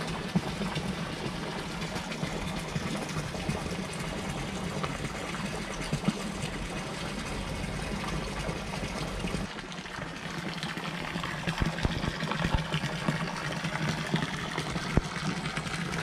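Water running steadily from a garden fountain into a pond, an even splashing noise with a steady low hum beneath it; the splashing grows stronger about two-thirds of the way in.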